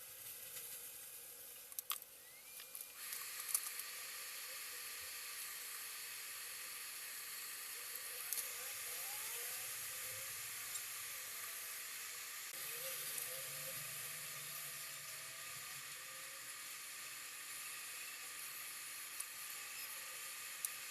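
Steady hiss with a few faint clicks and taps during soldering work on a cable's wires. The hiss steps up about three seconds in and then holds.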